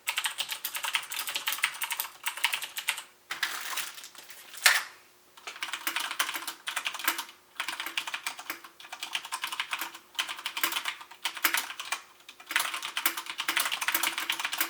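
Fast typing on a mechanical keyboard with Cherry MX switches: runs of rapid keystrokes lasting a second or two, with short pauses between, and one louder knock about four and a half seconds in.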